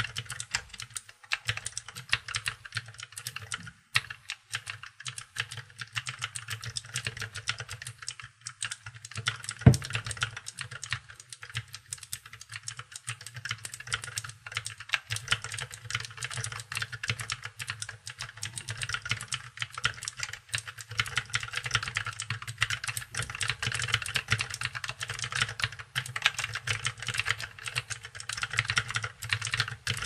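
Continuous fast typing on a Duck Blackbird mechanical keyboard with lubed Cherry MX White (milk) switches, 65 g springs and a stainless-steel plate: a dense, even run of keystrokes, with one louder thump about ten seconds in.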